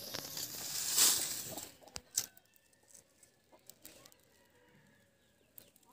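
A bundle of dry leaves and twigs rustling and crackling as it is put down and handled, loudest about a second in, followed by two sharp snaps about two seconds in. Hens cluck faintly afterwards.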